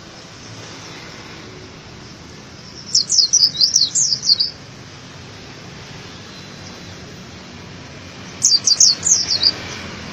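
Pleci dakun white-eye singing: two short bursts of quick, high, falling chirp notes, the first about three seconds in and the second near the end, over a steady background hiss.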